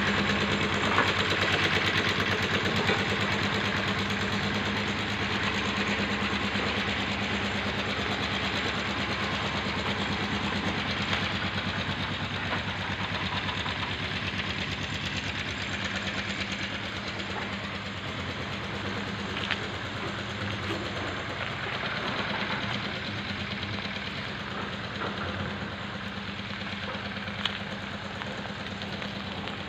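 An engine running steadily at idle with a low, even hum, slowly growing fainter, over the hiss of falling rain.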